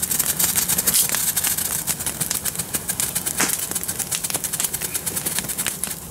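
Ground firework burning with a dense crackle of rapid sharp pops, thinning out over the last couple of seconds as it burns down.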